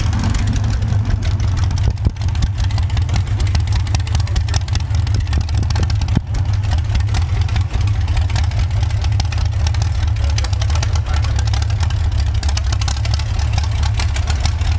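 1950 Buick inline straight-eight engine with dual carburetors running steadily through open side-exit exhaust pipes, a loud, even low-pitched exhaust note with no revving.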